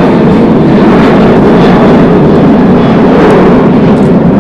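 Loud, steady engine noise that goes on without a break.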